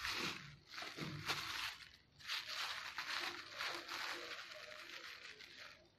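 Clear plastic packaging bag crinkling and rustling in irregular bursts as hands handle an air pump wrapped in it.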